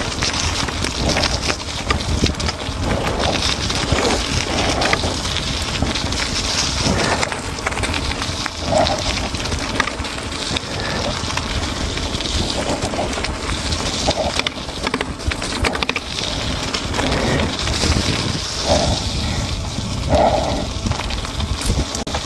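Electric mountain bike ridden over a gravel track: tyres crunching over loose stones with many small knocks, over a steady rush of wind on the microphone.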